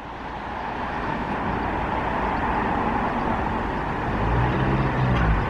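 Steady road-traffic noise, with a vehicle's engine growing louder and passing about four to five seconds in.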